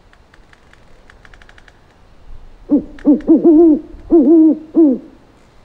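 Owl hooting: a run of about six hoots, the first ones short and the later ones drawn out and falling away at their ends.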